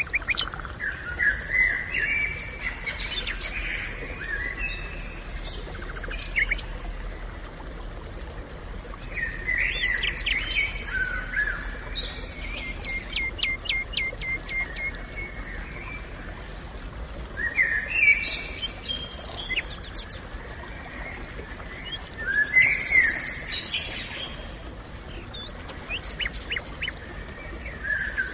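Songbirds singing in a forest: chirping and whistled phrases every few seconds, one a quick run of ticking notes, over a faint steady background hiss.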